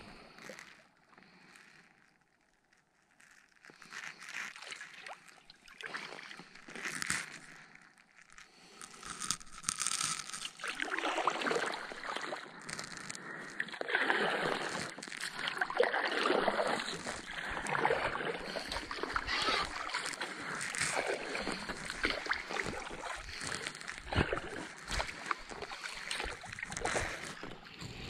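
Double-bladed kayak paddle dipping and splashing in calm lake water, a stroke every second or two, starting about ten seconds in. Before that there is only faint water sound as the inflatable kayak glides.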